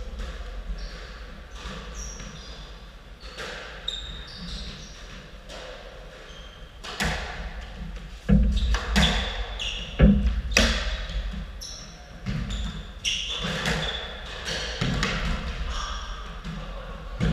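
A squash rally: the ball is struck by rackets and hits the court walls with sharp smacks about every one to two seconds from about seven seconds in, after a few lighter taps. Short high squeaks from rubber-soled court shoes on the wooden floor come between the hits.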